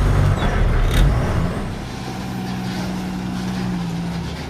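Truck engine running, heard from inside the cab as a loud, low, steady hum. There is a sharp click about a second in, and from about a second and a half in a quieter, steady engine hum of a truck standing close by on the road.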